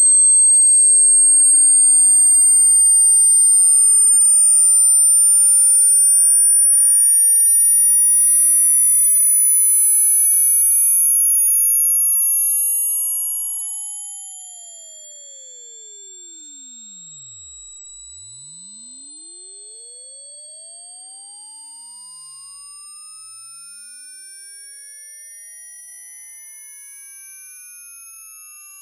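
Synthetic sine-wave test sweep for checking headphone treble extension: a single pure, very high-pitched tone rising slowly and steadily in pitch toward the upper limit of human hearing, at a constant level.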